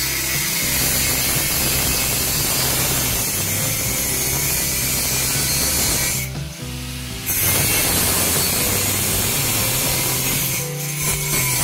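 A metalworking tool working the steel of a homemade vise: a continuous harsh noise that stops for about a second midway, then resumes. Background music with a steady bass line plays underneath.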